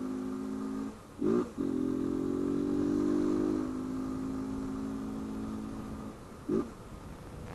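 Honda CG 160 Fan's single-cylinder engine running under way with its intake hose (mangote) removed, giving a louder intake noise. The steady note breaks about a second in with two short revs, then falls away near the end with one more short rev.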